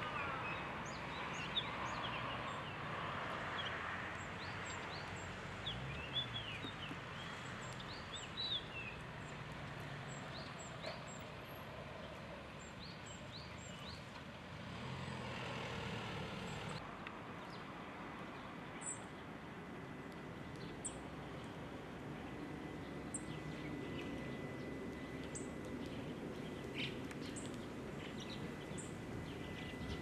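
Scattered short, high chirping call notes from a flock of Japanese grosbeaks feeding on the ground, over a steady background hum.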